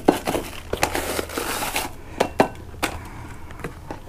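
Dry corn muffin mix pouring from its cardboard box into a glass bowl, the packaging crinkling and rustling as it empties, followed by a few scattered light taps and knocks.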